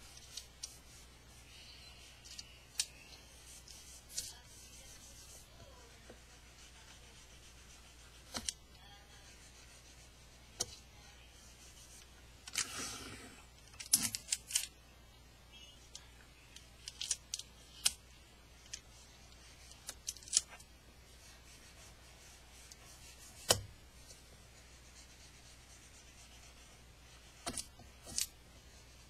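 Clear sticky tape being pressed and rubbed onto an iPod by fingers, with scattered sharp taps and clicks. About halfway through, a short rasp of tape pulled from a desk dispenser, then a quick run of clicks as it is torn off.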